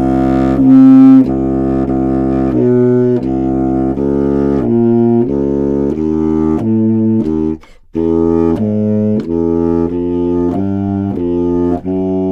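Electronic music from a Pure Data audio-processing patch: layered, low pitched tones that step to new notes about twice a second, with a brief gap a little before eight seconds in.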